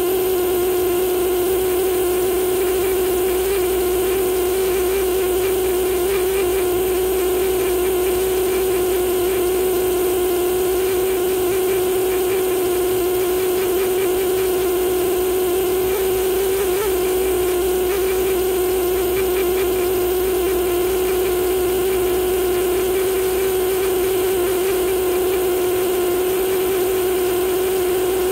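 Pneumatic air scribe buzzing steadily at one high pitch as its vibrating needle chips limestone matrix away from fossil fish teeth.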